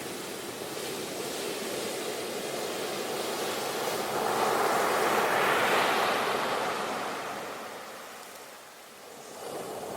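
Sea waves breaking on a shore: a wave swells to a crash about halfway through, its wash fades away, and the next one starts to rise near the end.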